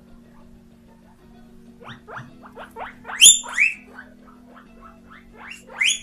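Guinea pig wheeking, the call it uses to beg for food when hungry: a run of short rising squeaks starting about two seconds in, with two loud, longer rising whistles a little after three seconds and another loud one near the end.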